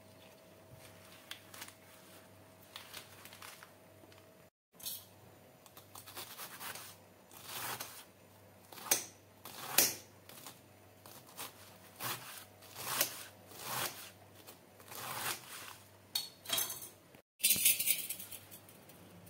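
Kitchen knife slicing through a stack of spinach leaves on a stone countertop: irregular crisp cuts, the blade knocking on the stone at each stroke. Before the cutting there is soft rustling of the leaves. Near the end come a few seconds of hands scraping and sweeping the chopped spinach together on the counter.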